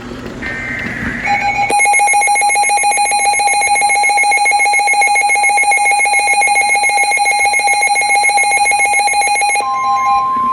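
Emergency Alert System attention signal: a loud, harsh, buzzing alarm tone that starts about a second in and holds steady for about eight seconds. Near the end it gives way to a single higher steady tone.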